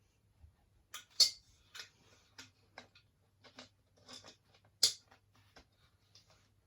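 Small metal clicks, clinks and short scrapes of hand work on a Brodie steel helmet's liner fitting, as its washer and T-piece are worked into place. Two sharper clinks stand out, about a second in and near five seconds.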